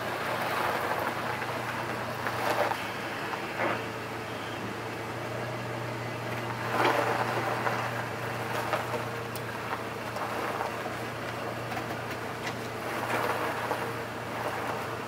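Chevrolet Colorado pickup's engine idling as the truck is backed slowly in reverse, a steady low hum under a noisy hiss with a few brief louder swells.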